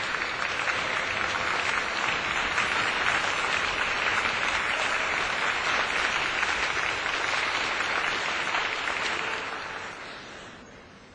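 Audience applauding steadily, dying away over the last couple of seconds.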